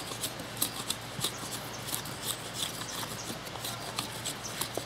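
Ultra Natura hand hatchet's blade shaving thin curls off a stick of kindling braced on a stump, the way a feather stick is made for fire lighting: a quick run of short, crisp scraping strokes, roughly three a second.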